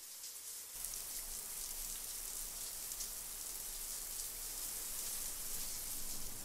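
Shower running: a steady hiss of water spray, settling in within the first second.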